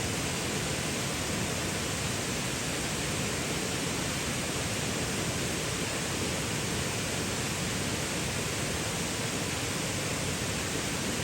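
Heavy rain falling steadily, a dense, even hiss with no breaks.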